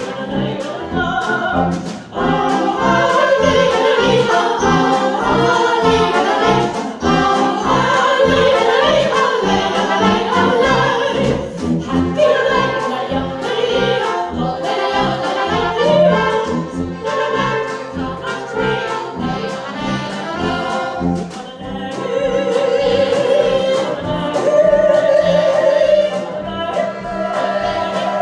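A choir of children singing a folk song with instrumental accompaniment over a steady beat.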